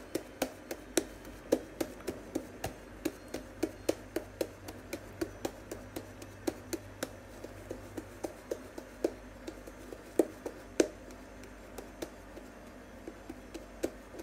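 Green slime being kneaded and squeezed in the hands, giving a string of sharp clicks and pops, about two or three a second, that thins out near the end.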